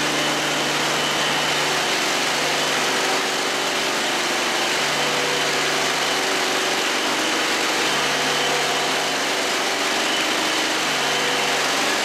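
Propane-fuelled walk-behind concrete floor grinder running steadily while grinding a concrete floor: an even engine drone under a dense grinding hiss, with a thin steady high whine.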